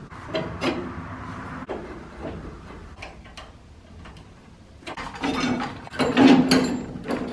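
Scattered metallic clinks, knocks and clicks of hand tools working the axle and leaf spring hardware of a pickup's rear suspension, busier and louder from about five seconds in.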